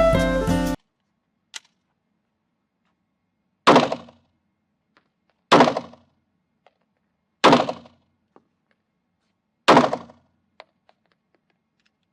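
Music cuts off, then four sharp bangs about two seconds apart, each with a short ringing tail, with a few faint clicks between them.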